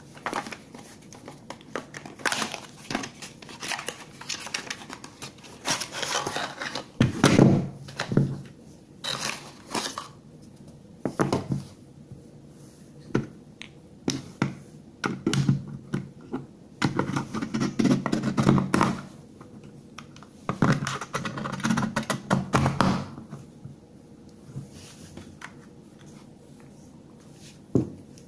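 Unboxing handling noise: a cardboard box and its packaging rustled and set down, with irregular clicks and knocks as two 18650 lithium-ion cells are handled and fitted into a plastic two-bay battery charger.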